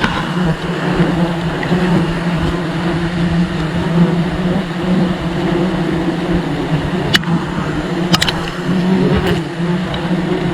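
Mass of honeybees buzzing around the nest: a steady, slightly wavering low hum, with a few sharp clicks about seven and eight seconds in.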